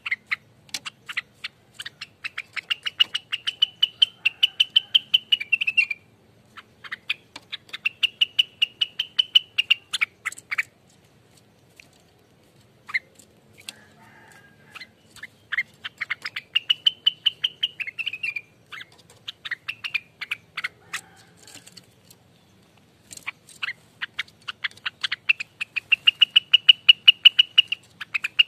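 Cucak rengganis songbird singing its rapid rolling 'ropel' song: quick staccato notes, about ten a second, over a held high whistle. The song comes in bouts of a few seconds with short pauses between them.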